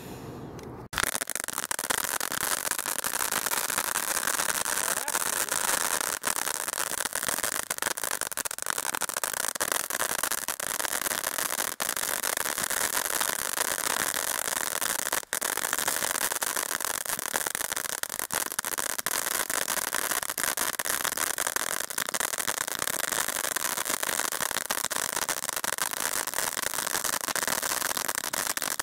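Two Dominator pro ground fountains, a crackling fountain and a silver fountain, burning at once: a steady rushing hiss of sparks with dense crackling, starting about a second in.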